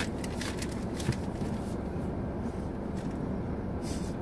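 Steady low rumble of a car cabin, with a few short crackles near the start and one near the end.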